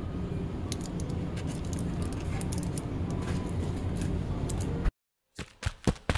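Steady low hum of a shop interior with faint clicks and crinkles of a plastic blister pack of chocolates being handled. About five seconds in the sound cuts off, and a quick run of sharp clicks follows.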